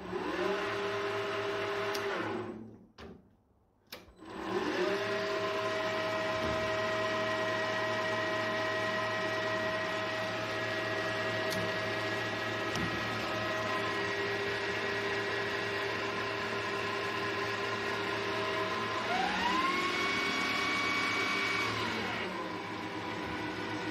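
Boxford 280T lathe's motor, run from a variable-frequency drive, spinning the spindle and gears with a steady whine. It winds down to a stop about two and a half seconds in, ramps back up about four and a half seconds in with a rising whine, then speeds up to a higher whine about 19 seconds in and winds down again near the end.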